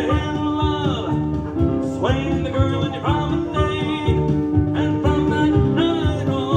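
Country-style music with a steady beat: the square-dance singing-call record playing on without the caller's voice.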